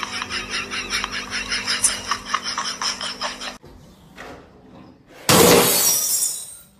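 Laughter in quick repeated peals, then, about five seconds in, a framed picture falling onto a tiled floor with a loud crash of breaking glass that dies away over about a second.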